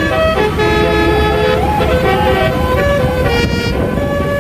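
Indonesian 'telolet' bus horn playing a tune of changing notes over the low rumble of the vehicle.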